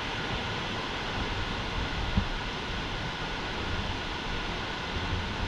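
Steady rush of a waterfall, an even noise of falling water with no letup, and a single brief low thump about two seconds in.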